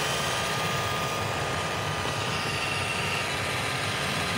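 iRobot Roomba robot vacuum running, a steady whir with a thin high whine, as it keeps cleaning on a low battery while searching for its dock.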